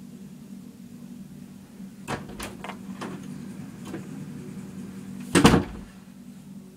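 Interior bedroom door opening with a few clicks of the handle and latch, then closing with one loud knock near the end.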